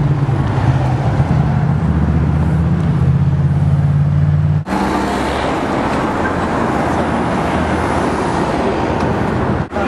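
A motor vehicle's engine running steadily with a low drone, heard from close by while moving along the road. About halfway in the sound cuts to a rougher engine hum mixed with road traffic noise.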